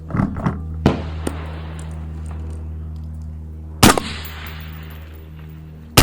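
5.56 gas-gun rifle shots at steel targets: a lighter crack about a second in, then two loud shots about two seconds apart, one just past the middle and one at the very end, each with a short echo.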